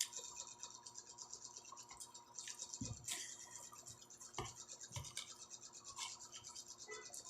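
Quiet eating sounds: chewing, with a few soft clicks and light knocks of utensils, over a steady faint high-pitched buzzing hiss.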